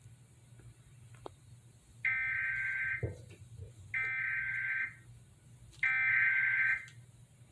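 Emergency Alert System SAME header: three bursts of harsh digital data tones, each about a second long and about a second apart, over a faint low hum. It is the machine-readable header that opens a severe thunderstorm warning.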